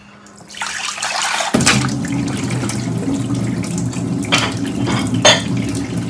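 Kitchen tap running into the sink as dishes are rinsed, the flow growing much stronger about a second and a half in and then running steadily, with a few sharp knocks of crockery.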